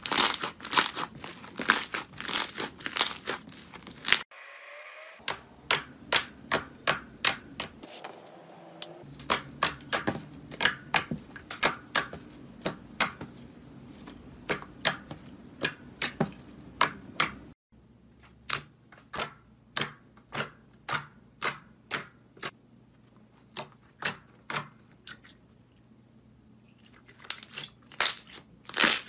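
Slime being pressed and poked by hand, giving a run of sharp clicks and crackling pops, about two a second, coming faster near the start and the end.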